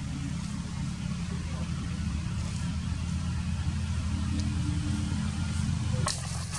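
A motor vehicle engine idling steadily, a low rumble that cuts off about six seconds in, followed by a few sharp clicks.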